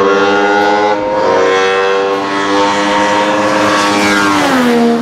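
Aircraft passing by: a loud, steady engine tone with many overtones that drops in pitch about four seconds in as it goes past.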